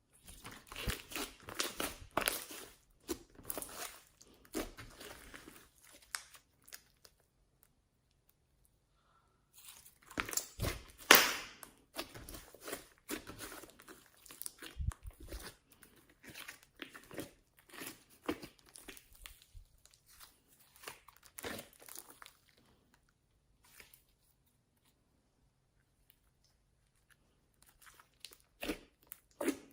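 Homemade slime being squeezed, stretched and kneaded by hand, giving crackling, crunchy squelches and small pops in bouts with short quiet gaps. The loudest snap comes about eleven seconds in.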